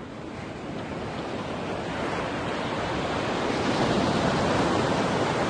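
Ocean surf washing onto a sandy beach, a steady rush of breaking waves that grows gradually louder over the first few seconds.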